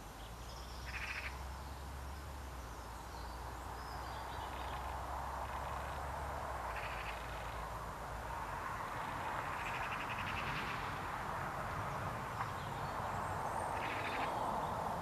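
Garden birds calling in short trilled phrases every few seconds over a steady outdoor hiss. A low rumble of wind on the microphone fades after the first several seconds.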